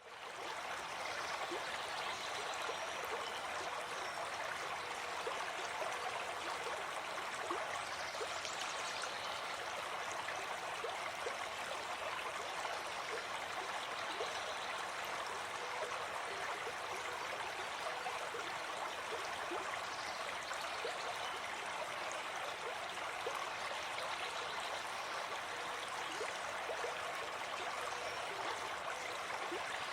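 Forest river flowing over rocks: a steady babbling rush of running water with fine gurgles and splashes.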